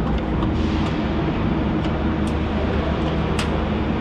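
Steady drone of industrial machinery with a low hum, and a couple of light knocks in the second half.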